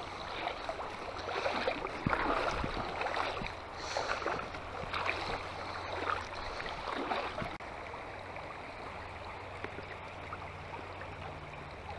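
Shallow creek riffles flowing and burbling, with irregular splashy swishes of water over the first several seconds, settling into a steady rush of flowing water.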